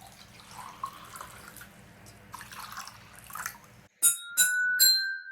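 Water-tuned ceramic bowls struck three times in quick succession, each ringing at a clear pitch a little higher than the one before, the last note ringing on for about a second. Before the strikes only faint small noises are heard.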